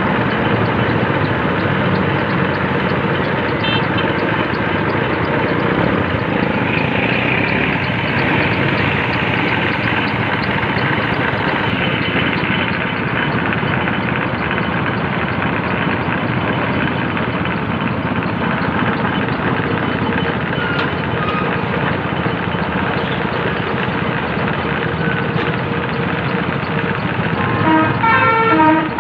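Steady hiss of compressed air through a gravity-feed paint spray gun as it sprays. Near the end a vehicle horn starts sounding in short repeated notes.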